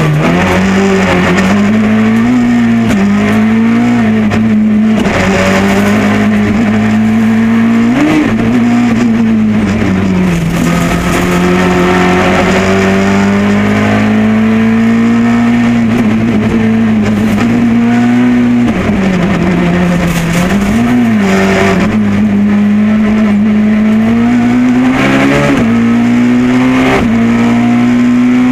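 Ford Escort Maxi kit car's engine, heard from inside the cabin, running hard at high revs on a rally stage. Its pitch dips and rises again several times as the throttle comes off and back on, over steady road and tyre noise.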